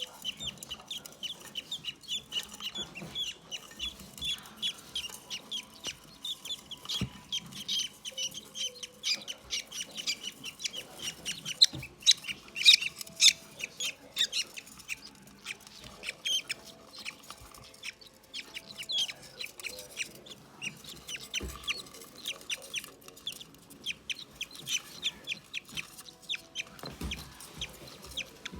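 Budgerigar chicks chirping rapidly and continuously in quick, high repeated calls, loudest about twelve seconds in.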